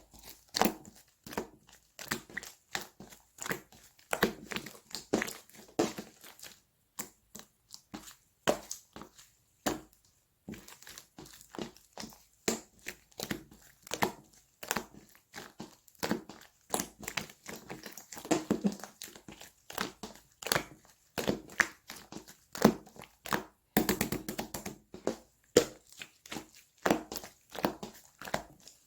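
Slime being squeezed and pressed by hand, giving dense, irregular sticky clicks and crackling pops.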